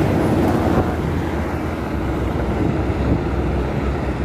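Steady wind rush on the microphone of a moving bicycle, over a low rumble of road traffic.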